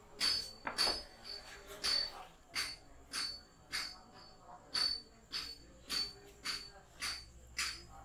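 Fingers rubbing and tugging tufts of hair against the scalp during a head massage: a short crackly rustle repeated nearly twice a second, many strokes with a faint high squeak.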